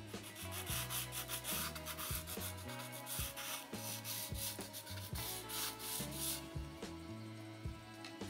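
Thin sanding file rubbed in quick, repeated strokes along the edge of a plastic model-kit wall panel, filing off leftover sprue nubs. The strokes stop about two-thirds of the way through.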